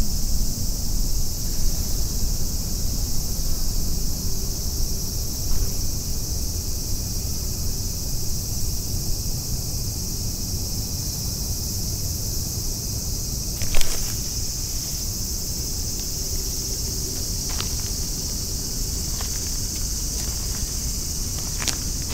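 Steady high-pitched drone of a cicada chorus over a low rumble, broken by a few sharp clicks, the loudest about two-thirds of the way through.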